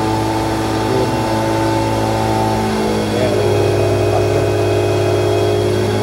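Milking machine motor and pump running steadily, a noisy, even mechanical hum.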